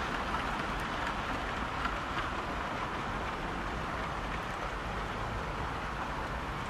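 OO gauge model freight train running along the garden track, a steady rolling hiss and rumble that eases slightly as the train moves away.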